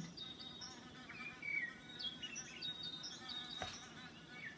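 Small birds chirping: short high chirps and little whistled glides, scattered and quiet, with a single sharp click about three and a half seconds in.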